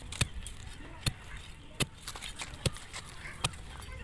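A metal digging bar struck down into hard, clod-filled earth, breaking up the soil of a pit. It lands five times, as sharp thuds about one every 0.8 seconds.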